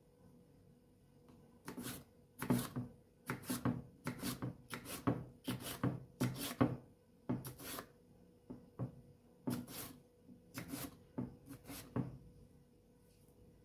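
Small kitchen knife slicing a green bell pepper into strips on a wooden cutting board: a run of quick cuts, each ending in a tap on the board, about two a second, starting about two seconds in and stopping shortly before the end.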